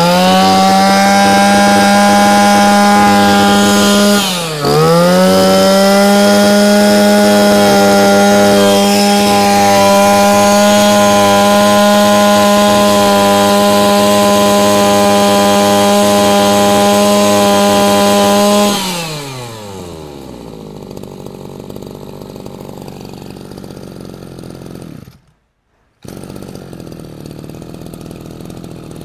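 Shindaiwa 25cc two-stroke brush cutter engine held at full throttle with a steady high-pitched drone. About four and a half seconds in the throttle dips briefly and comes back up. Around nineteen seconds the throttle is released and the pitch falls away to a much quieter idle, broken by a short silence near the end.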